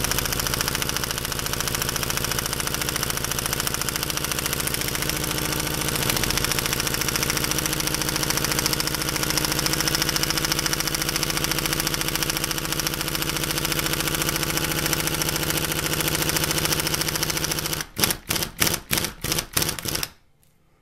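Impact gun hammering steadily on a homemade slotted bit driving a seized old slotted screw, run at low power so the bit doesn't snap. Near the end it comes in several short bursts, then stops, the screw still not loose.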